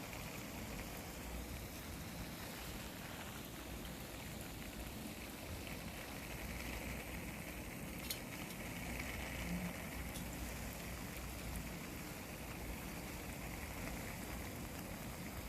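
Water pattering steadily onto soil, an even spattering hiss without a break.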